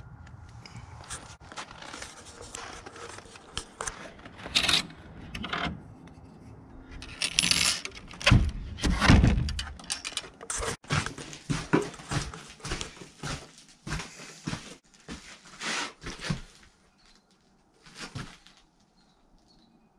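Scrapes, knocks and metallic clicks as a steel hasp on a wooden shop door is unlatched and the door opened, in a string of short, uneven noises with a sharp click about eleven seconds in.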